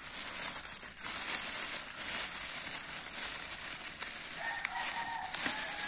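Thin plastic shopping bag rustling and crinkling continuously as hands pull it open and rummage inside among paper-wrapped food packets.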